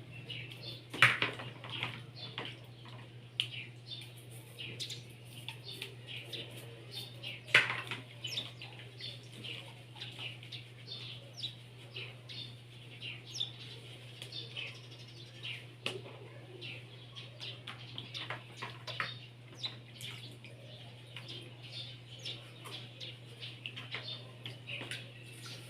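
Small birds chirping over a steady low hum, with two sharp knocks, about a second in and near eight seconds in, from plastic bottles or a basin being handled.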